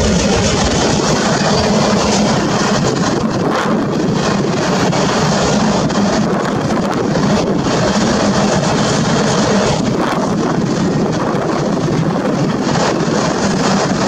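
Freight train of autorack cars rolling past on steel wheels: a steady, loud rolling noise from wheels on the rails, with a few clanks.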